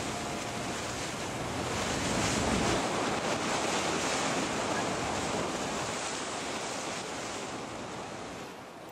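Wind buffeting the microphone over the rush of sea water along a yacht under sail. It swells a few seconds in and fades out near the end.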